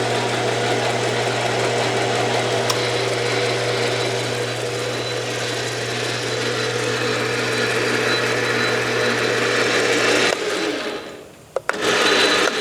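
Enco 12" x 36" gap-bed engine lathe running under its 1-1/2 hp single-phase motor: a steady motor hum with gear whine. About ten seconds in the motor cuts off and the sound drops, followed by two sharp clicks and a brief burst of running again near the end.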